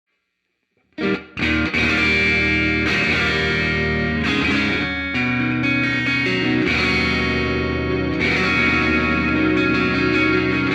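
Electric guitar played through an effects pedalboard, starting about a second in and then ringing out in sustained, layered chords.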